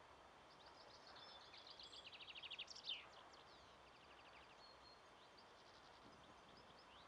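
Faint songbird singing: a rapid trill that speeds up and ends in a quick falling note about three seconds in, followed by a few shorter trills.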